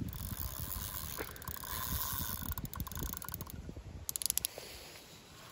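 Large carp spinning reel being wound in against a hooked fish, its gears whirring in a fast, even rhythm, with a short run of sharp clicks about four seconds in.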